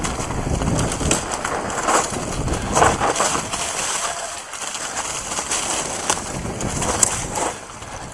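Mountain bike riding downhill over a dirt trail covered in dry leaves: tyres crunching through the leaves, with rattles and knocks from the bike over bumps. Wind buffets the microphone with a low rumble that is heavier in the first half.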